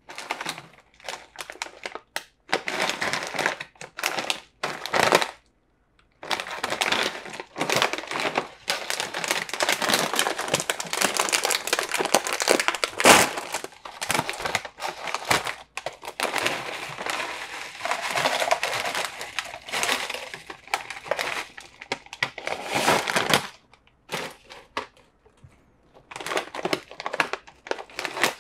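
Metallised plastic chip bags of Orion Sun corn chips crinkling loudly as they are handled and torn open, in irregular stretches with a couple of short pauses.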